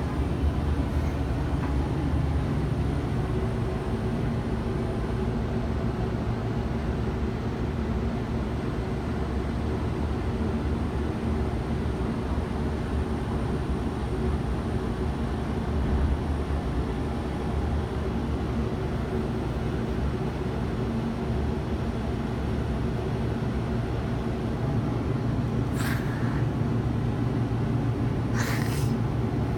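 Steady low rumble and hum inside a moving Ferris wheel gondola, with two brief hissy rustles near the end.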